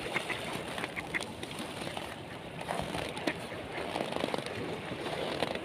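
Mallard ducks quacking, with a few short calls in the first second and scattered ones later, over steady background noise.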